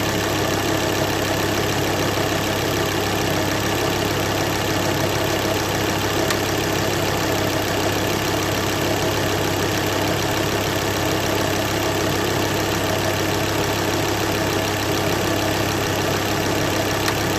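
Mk2 Ford Focus ST's turbocharged 2.5-litre five-cylinder engine idling steadily, with the clicking noise that the car is being recorded for.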